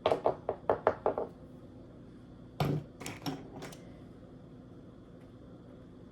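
Quick run of about seven sharp clicks and taps, then a dull thud and a few more taps about two and a half seconds in: small hard parts and tools handled on a workbench during a laptop repair.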